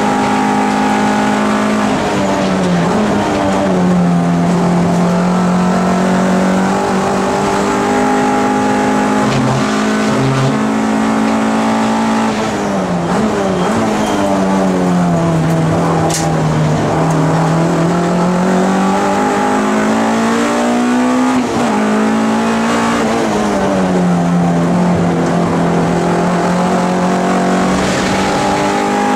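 MG ZR race car's engine heard loud from inside the cabin at racing speed, with road and wind noise. Its pitch drops sharply about two seconds in, then falls twice more under braking and gear changes, near the middle and about three quarters through, and climbs again as the car accelerates.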